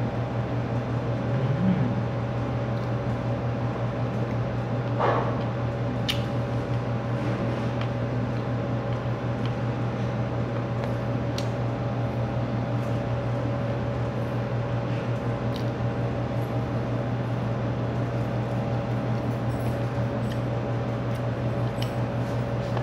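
Window air conditioner running with a steady low hum, with a few faint clicks over it.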